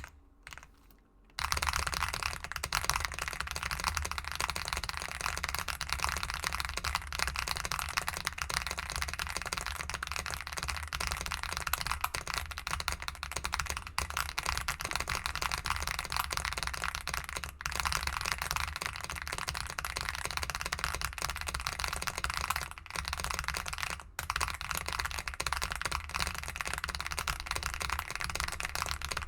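Mechanical keyboard with linear switches typed on at about 220 words per minute: a dense, continuous rattle of keystrokes starting about a second and a half in, with only a few brief breaks.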